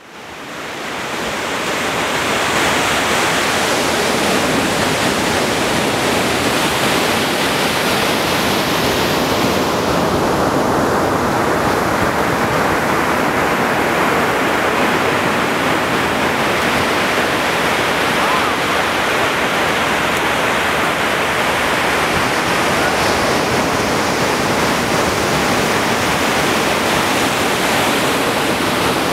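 Ocean surf washing onto a sandy beach: a loud, steady rush of breaking waves that fades in over the first second or two.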